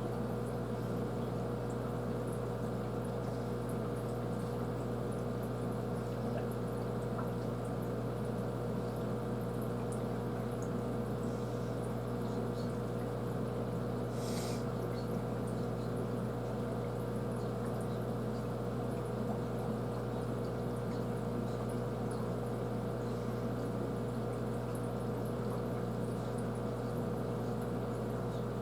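Aquarium filter pump humming steadily, with water moving and splashing in the tank; a short hiss about halfway through.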